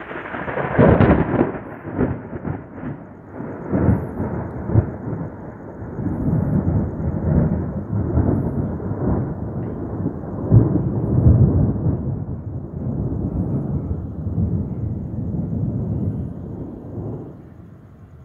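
Thunder rolling: a long, deep rumble that swells several times, loudest about a second in and again about ten seconds in, then dies away near the end.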